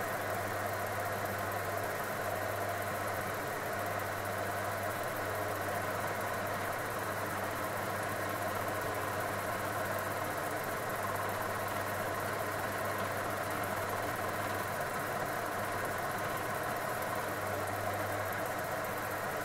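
Milling machine running steadily, its gear cutter cutting a tooth into a brass wheel blank, with a steady low motor hum under the cutting noise.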